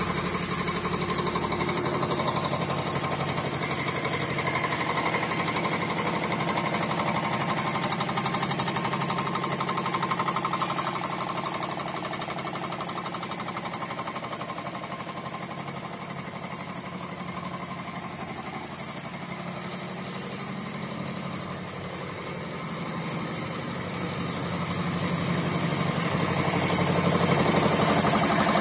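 High-speed wire nail making machine running, with a fast, steady mechanical clatter. The sound eases somewhat in the middle and grows louder again near the end.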